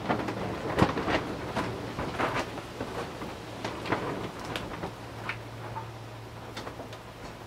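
Knocks, clicks and light clatter as the foil-covered AirCrete oven on a propane camp stove is opened by hand, its parts lifted and set down; the loudest knock comes about a second in, over a steady low hum.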